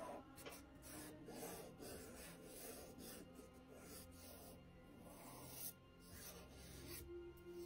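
Fingertips rubbing and smearing charcoal powder across paper in short repeated strokes, a soft scratchy rubbing, under quiet background music with sustained tones.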